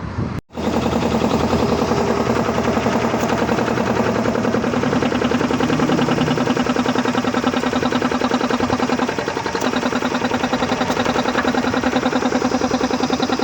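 Piston air compressor running steadily with a fast, even pounding of its strokes, starting abruptly about half a second in.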